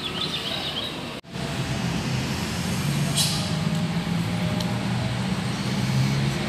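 A vehicle engine running steadily, heard as a low hum that sets in after a cut about a second in, with a short hiss about three seconds in.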